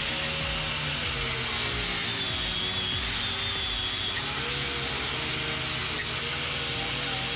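Power-tool wire brush running steadily against welded steel, scrubbing off burnt paint; its pitch wavers up and down as it loads and unloads.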